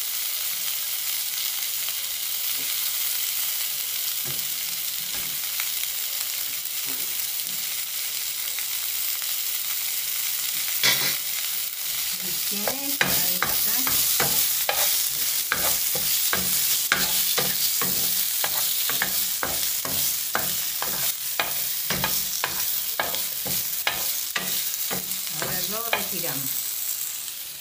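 Onion, loche squash and artichoke sizzling in oil in a frying pan. From about eleven seconds in, a wooden spoon stirs and scrapes the pan in quick repeated strokes, about two a second.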